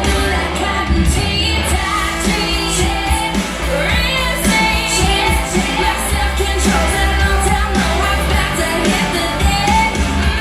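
Pop song with a female lead vocal and strong bass, played through a pair of Bose S1 Pro speakers with a Bose SUB 1 subwoofer.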